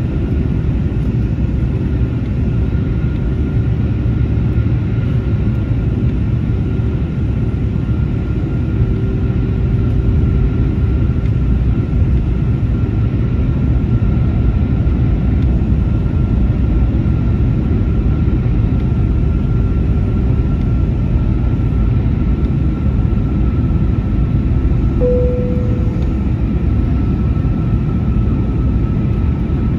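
Airbus A321neo cabin noise from a rear window seat: the steady drone of the Pratt & Whitney PW1100G geared turbofans and airflow, with a constant high whine over it. A short single tone sounds once near the end.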